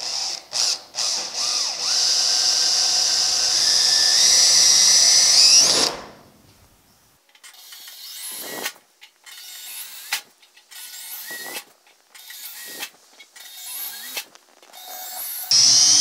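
Cordless drill boring 7/64-inch pilot holes through a sheet-metal weather-strip retainer into a steel door panel. It starts with a few short spurts, then runs for about five seconds with a whine that rises before it stops. After that come a string of shorter, quieter bursts, and one more loud burst at the end.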